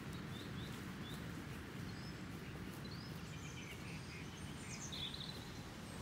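Small birds chirping and singing in short phrases, with a louder burst of calls about five seconds in, over a steady low rumble of wind.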